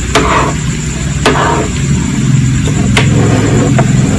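Metal tongs clinking four times against a pot of fish cake soup as the skewers are moved, over a steady low rumble.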